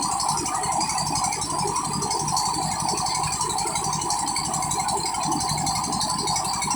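Old Petter diesel engine running steadily with a fast, even rattle, driving an atta chakki flour mill.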